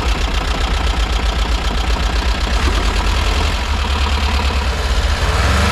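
A VW bus's air-cooled flat-four engine idling, a little rough and a little knocky but firing on all four cylinders, which is taken to be probably just from being cold.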